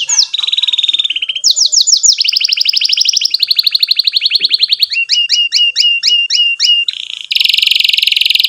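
Domestic canary singing a long rolling song: rapid trills of repeated notes that change pitch from phrase to phrase, then a run of about eight sweeping notes, about four a second, and a loud dense buzzy phrase near the end.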